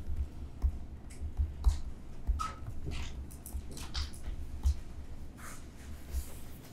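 Pen-stylus strokes scratching and tapping on a tablet screen while a word is handwritten, in short separate strokes, over soft low bumps.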